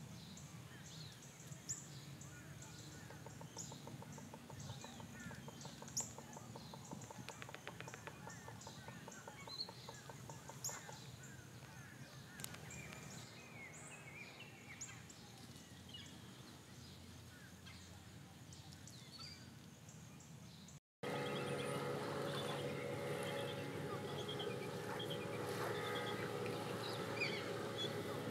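Outdoor ambience of many small birds chirping and calling. After a brief cut-out about three-quarters through, the ambience comes back louder, with a steady low hum under continuing bird calls.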